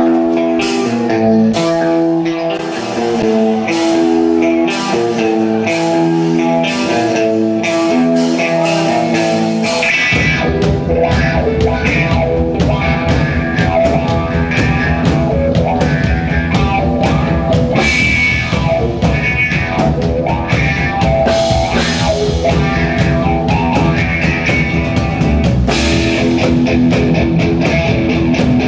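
Rock band playing live: an electric guitar riff over light drum hits, then bass and the full drum kit come in about ten seconds in.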